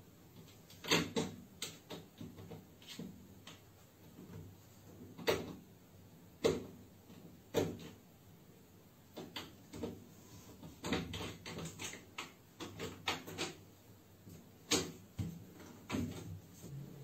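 A cat pawing at a door's lever handle and latch: irregular clicks and rattles of the handle, a few sharper knocks among them, at uneven intervals.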